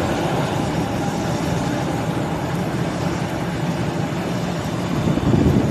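Steady rushing rumble of a passenger jet taxiing through floodwater, its engine noise mixed with the spray from its wheels.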